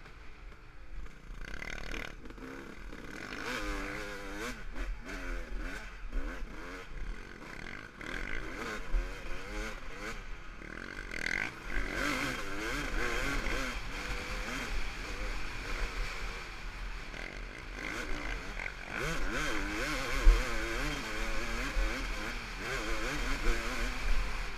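Off-road dirt bike engine ridden hard, its pitch rising and falling again and again as the rider revs and shifts through the gears. Wind rush and knocks from the bumpy track come with it, the loudest knock about twenty seconds in.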